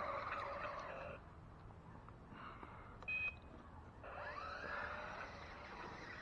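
1/10-scale RC off-road 4x4 truck's electric motor and gears whining, cutting out about a second in. A single short high beep follows, and about four seconds in the motor spins up again in a rising whine.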